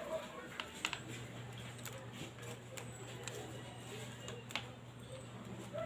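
Faint handling noise of hands working with electrical wires and a plastic bag: scattered small clicks and light rustling, over a low steady hum that starts about a second in.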